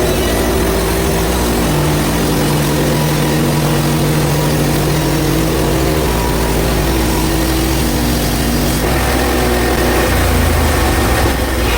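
Hud-Son HFE30 portable bandsaw mill running steadily, its engine under load as the band blade cuts a 4/4 board through a black cherry log. The engine note shifts about nine seconds in.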